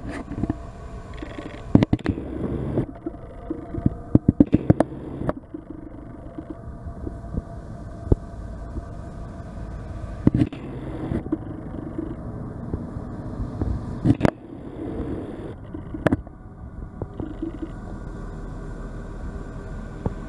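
An engine running at a steady idle with a low rumble, with loud clicks and clunks now and then, several in quick succession about four to five seconds in.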